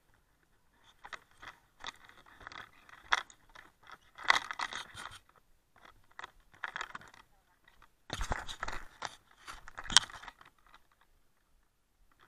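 Firefighter's turnout gear and equipment rustling, clinking and scraping close to a body-worn camera as he walks, in irregular bursts, with a sharp knock near the end.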